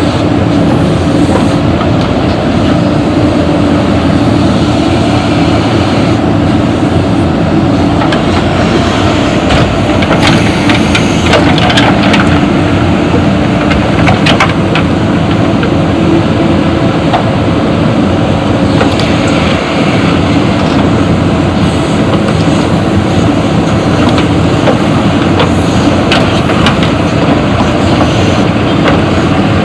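JCB backhoe loader's diesel engine running steadily while it works, with scattered knocks and rattles through it.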